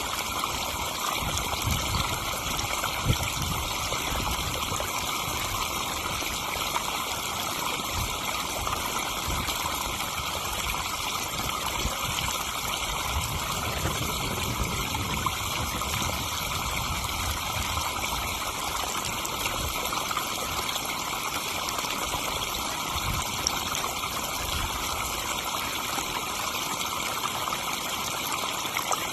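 Garden pond waterfall: water splashing and trickling steadily into the pond.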